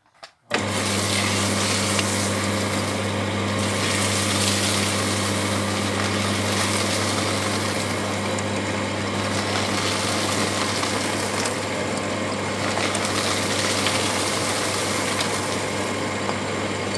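Electric paper shredder starting up about half a second in and running steadily, its motor giving a constant low hum under the grinding of its cutters chewing through a stack of paper.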